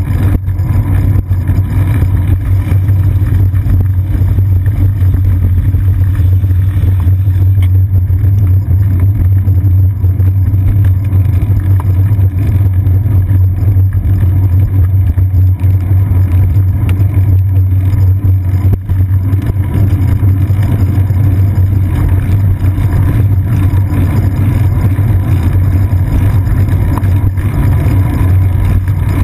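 Loud, steady low rumble of a bicycle riding over wet pavement, the road vibration and wind picked up by a GoPro camera clamped to the seat post.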